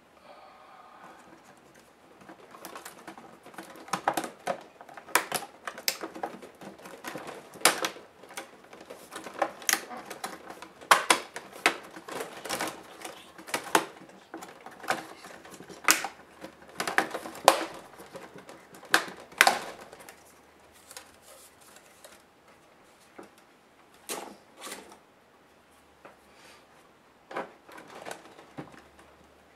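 Plastic case parts of an HP G71 laptop being pried and unclipped by hand: a rapid, irregular string of sharp plastic clicks and snaps, thinning out to a few scattered clicks in the last third.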